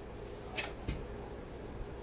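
Quiet kitchen room tone with small handling noises: a brief scrape about half a second in, then a soft low knock just before a second in.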